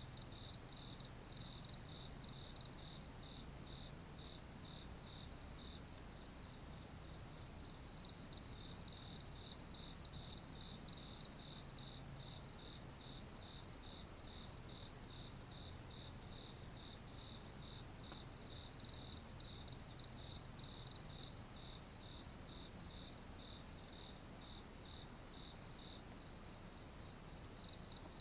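Insects chirping in a high-pitched, even pulse of about three to four chirps a second. The chirping swells louder in bouts of a few seconds and stays fainter in between.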